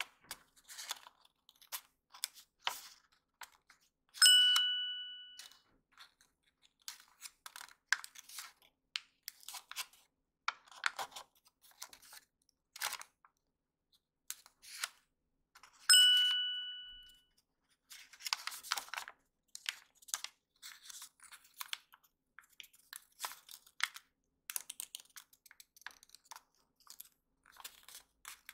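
Origami paper crinkling and crackling in irregular bursts as it is folded and creased by hand. A clear bell-like ding rings out twice, once about four seconds in and again about sixteen seconds in, each fading over a second or so; the dings are the loudest sounds.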